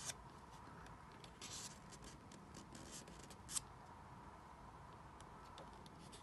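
Paperback book pages being turned by hand: faint paper rustles and soft flicks, the sharpest about three and a half seconds in.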